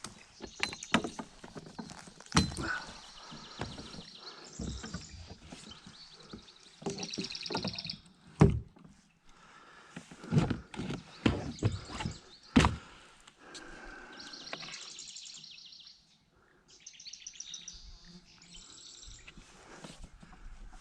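Irregular knocks and thuds, the loudest about eight and twelve seconds in, with birds singing quick high trills between them.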